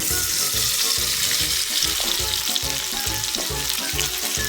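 Chicken thighs breaded in crushed Cheetos and Takis deep-frying in hot cooking oil, sizzling steadily.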